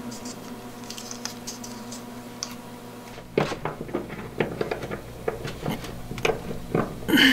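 Irregular small clicks and scrapes of hands working fittings: thread-seal tape being wound onto a brass fitting over a faint steady hum, then a cable gland being twisted tight by hand. A brief louder noise comes near the end.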